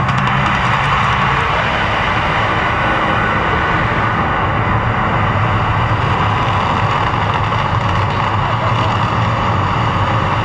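Mirage volcano show eruption: a loud, steady rumbling roar from the effect and its gas flames, with the show's droning soundtrack under it.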